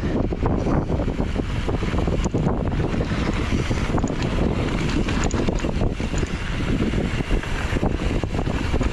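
Wind buffeting the microphone of a camera on a moving mountain bike: a steady rushing rumble, with many small clicks and rattles from the bike running over rough trail.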